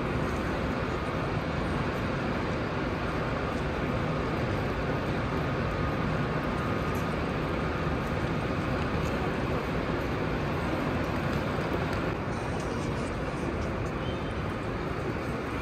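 Steady hum and rumble of a covered railway station hall with high-speed trains standing at the platforms, a thin steady tone in the first second, easing slightly in level near the end.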